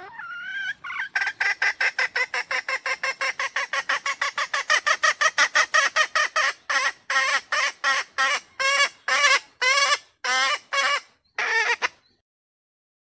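Female red junglefowl calling: a short call, then a rapid run of clucking notes about five a second, slowing to longer, spaced notes about two a second before it stops. It is a hen's call used as a lure to draw male junglefowl close or make them crow.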